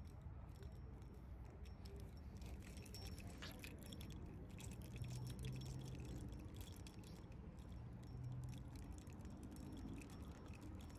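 Faint rustling and scattered small clicks of a phone being handled, over a low steady hum. A low drone swells briefly twice, about five and eight seconds in.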